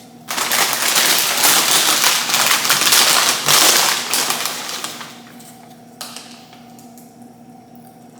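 Plastic food packaging crinkling loudly close to the microphone for about five seconds, then a single sharp click about six seconds in.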